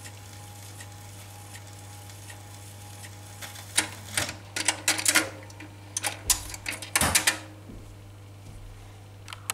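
Telefunken record changer at the end of a 78 rpm record. The stylus ticks in the run-out groove about once a revolution, then from about four seconds in the changer mechanism clatters and clicks as it lifts the tonearm and swings it back to its rest. A low steady hum runs underneath.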